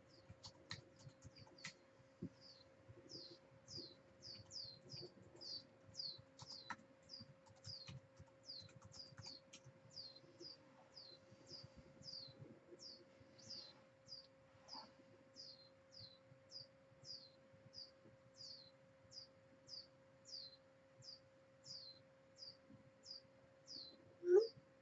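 A small bird chirping over and over: short, high, falling chirps roughly every two-thirds of a second, over a faint steady hum. A brief louder rising squeak comes near the end.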